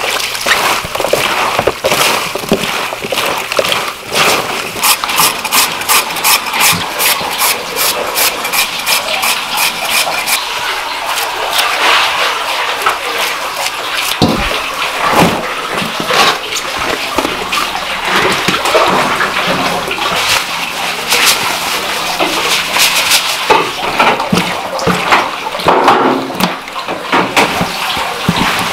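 Kimchi preparation by hand: wet napa cabbage handled with salt in a plastic tub, chives cut with scissors, and cabbage mixed with red pepper seasoning, making a run of wet rustling and squelching with many sharp clicks. For several seconds in the first half the clicks come evenly, about three a second.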